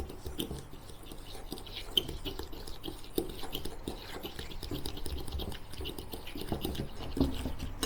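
Softened butter and sugar being creamed together in a bowl with a hand utensil: an irregular run of soft scraping and squishing strokes with light taps against the bowl.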